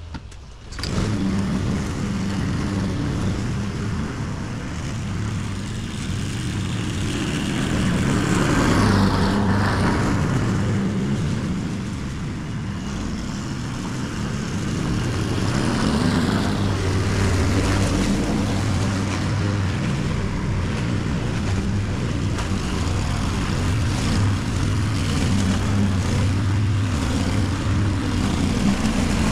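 Honda walk-behind petrol lawn mower starting up about a second in, then running steadily while mowing, its engine note swelling and easing as it moves across the lawn.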